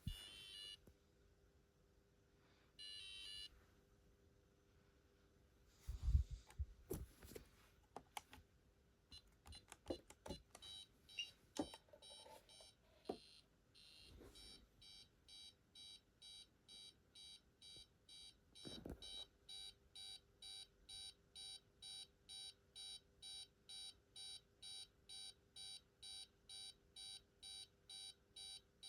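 Faint electronic beeping from an intruder alarm system: two short beeps, a few clicks and knocks, then a steady run of rapid repeating beeps that quickens about two-thirds of the way through to around two or three beeps a second.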